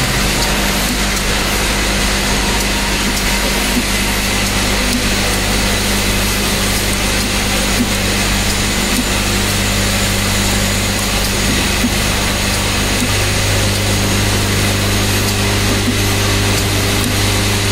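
Automated carbon-part grinding machine with its vibratory bowl feeder running: a loud, steady mechanical hiss over a low, even hum, with a few faint clicks.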